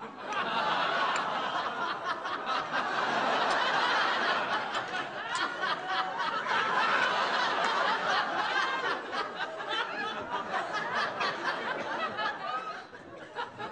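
Studio audience laughing: a long, sustained swell of laughter that fades away near the end, with a few light clicks over it.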